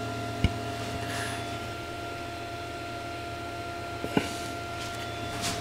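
Bondtech dual-drive extruder stepper motor on an Ender 3 pushing filament out slowly with a steady high whine: the short 15 mm extrusion at the start of an unload script, before the retraction. Two faint clicks come about half a second in and near the end.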